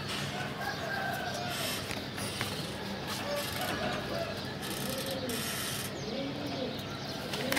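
Domestic pigeons cooing in their loft: a string of low, rising-and-falling coos repeated every second or so.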